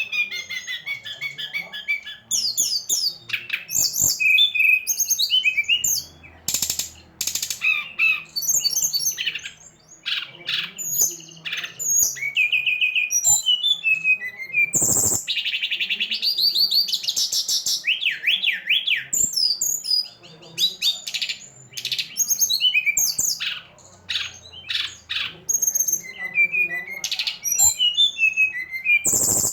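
Songbird singing a fast, varied stream of chirps, trills and whistles, a 'pancingan' lure recording of the kind played to caged birds to stir them into song.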